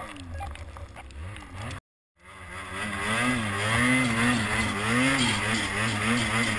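Ski-Doo Freeride 850 turbo snowmobile's two-stroke engine, running at lower revs, cutting out briefly about two seconds in, then revving up and held high under heavy load, its pitch rising and falling as the sled ploughs through deep powder.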